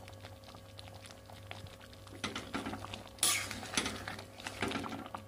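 Metal spatula stirring a thick egg curry in a steel kadai, knocking and scraping against the pan in irregular strokes from about two seconds in, loudest a little past the middle. Before that, only faint small clicks from the simmering curry.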